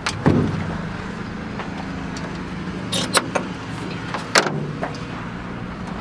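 Metal clunks and clicks from an old jeep's bodywork, consistent with the bonnet being unlatched and opened: a knock with a thud at the start, then sharp clicks about three seconds in and again about four and a half seconds in, over a steady low hum.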